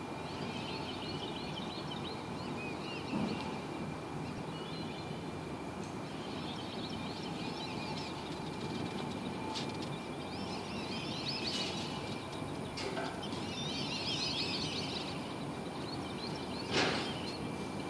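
Open-air ambience with a steady background hiss and birds chirping in several spells, plus a thin steady high tone. A few sharp knocks, the loudest near the end.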